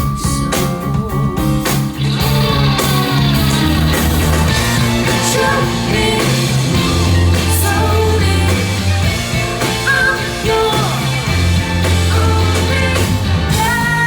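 A rock band playing live and loud, with guitars over held bass notes and a voice singing.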